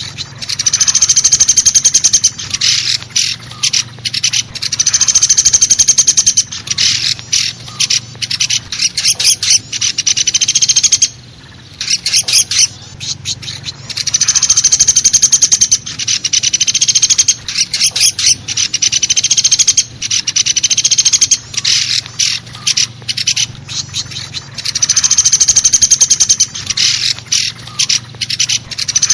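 Common flameback (pelatuk besi) woodpecker calling in a loud lure recording: long, high rattling trills of about two seconds each, repeated every few seconds, with short sharp single calls between them.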